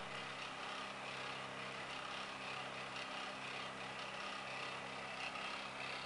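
Small electric fan running steadily: an even whirr of moving air over a low hum from its motor.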